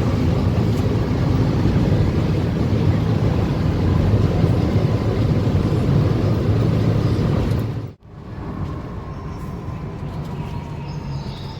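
A car driving at speed, its engine and tyre noise a steady rumble. About eight seconds in it cuts off abruptly and gives way to quieter, steady road noise.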